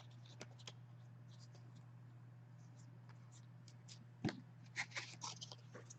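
Hockey card packs and cards being handled: a few faint clicks, then a cluster of sharp ticks and rustles about four seconds in, over a low steady hum.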